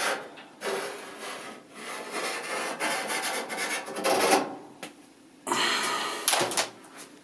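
Rubbing and scraping handling noises, in several separate bursts of a second or two, with a few sharp clicks near the end.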